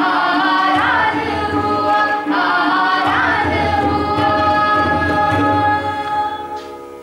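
A group of voices singing a slow melody in long, held notes, dying away near the end.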